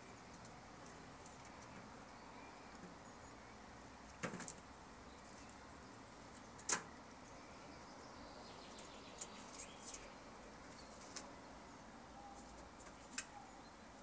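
Woodpecker and pigeon at close range: a brief flutter of wings about four seconds in, then a handful of short, sharp clicks spread through the rest, the loudest about seven seconds in.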